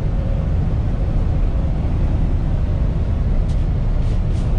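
Kenworth T680 semi truck driving, heard from inside the cab: a steady low rumble of engine and road noise.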